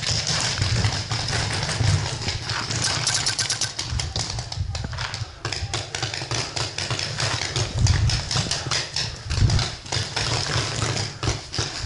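Rapid paintball fire at close range: a fast, uneven run of sharp cracks, several a second, starting suddenly and going on throughout, over low thuds.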